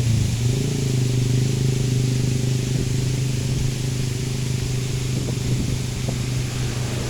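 An engine running steadily at a constant speed: a low, even hum under a wash of hiss.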